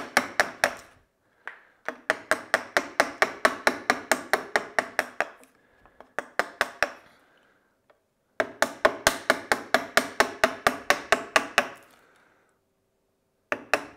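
Chisel driven with quick taps into soft pine, chopping out the waste of a half-lap joint: sharp wooden knocks about five a second, in several runs broken by short pauses.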